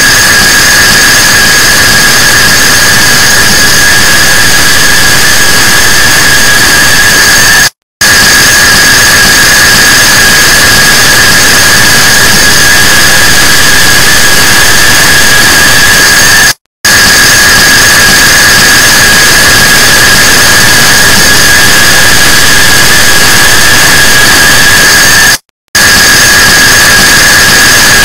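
Huge numbers of clock-tick recordings layered and sped up until the ticks merge into a loud, continuous hiss with steady high whistling tones. It cuts out for an instant three times, about every nine seconds.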